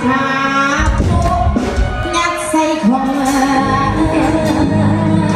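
Band music with a woman singing; a heavy bass and drum beat comes in about a second in under the melody.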